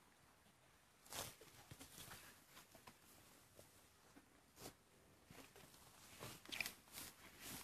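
Near quiet outdoor air with a few faint rustles and scuffs: one about a second in and a small cluster near the end.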